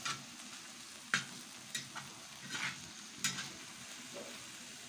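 Seafood pieces sizzling in oil and butter on a steel disco, with a metal spatula scraping across the pan in short strokes, about one every half second to second, as they are stirred.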